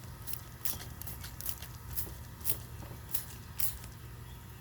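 Baking soda and water solution being worked on a car battery's terminals: a run of short, irregular hisses and crackles, about two or three a second, over a steady low hum.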